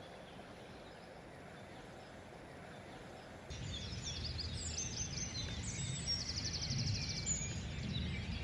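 Faint outdoor ambience, then from about three and a half seconds in, birds chirping and trilling over a low rumble.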